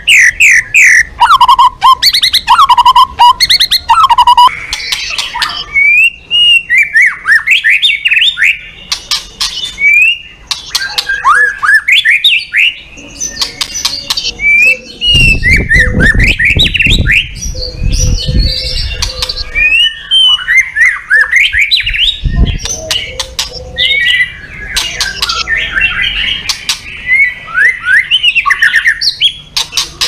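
White-rumped shama singing a fast, varied song of rising and falling whistles mixed with harsh chattering notes, with a low rumble for a few seconds around the middle.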